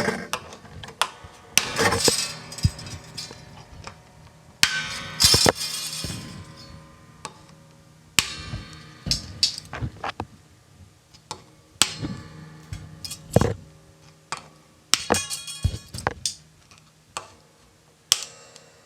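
Music: a sparse run of sharp struck notes, each ringing out and decaying, thinning out and growing quieter toward the end.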